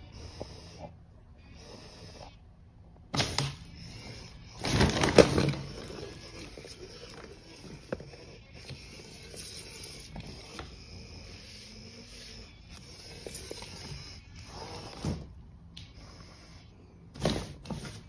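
Stiff plastic cat-litter bag rustling and crinkling as a cat noses and paws into it, in a few short bursts, the loudest about five seconds in.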